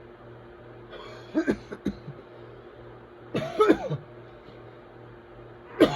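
A person coughing in three bouts about two seconds apart, each a quick cluster of harsh coughs, with the third starting near the end. It is a coughing fit that the uploader puts down to whooping cough.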